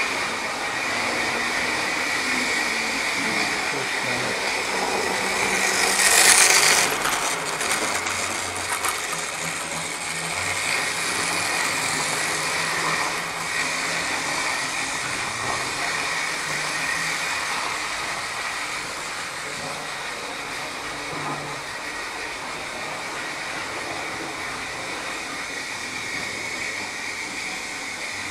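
Model railway locomotive's small electric motor running, a steady whirring whine with wheels on the track. It is loudest briefly about six seconds in. The motor is noisy, and the owner wonders whether the locomotive is overdue for a service.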